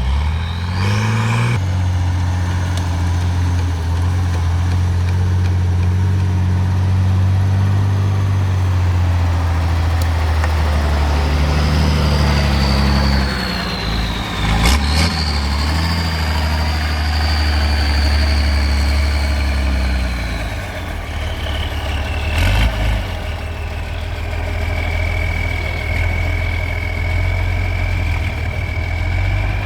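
Trial truck's engine running hard, its revs rising at first and then rising and falling as it works. A high whine slides down in pitch over it and then holds steady. A sharp knock comes about halfway through and another about two-thirds in.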